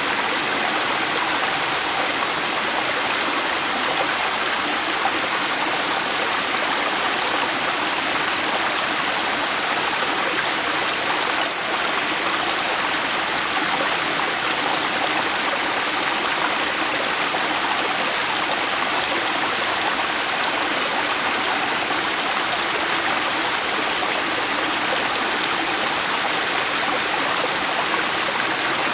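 River water flowing and rushing steadily, an even, unbroken sound of running water.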